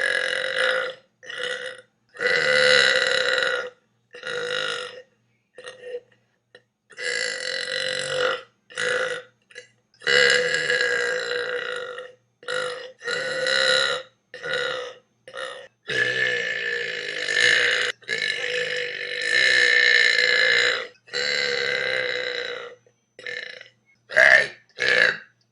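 A person burping over and over: a run of loud burps, some drawn out for a second or two, others short and quick, cut together with abrupt silent gaps between them. Near the end comes a quick string of short burps.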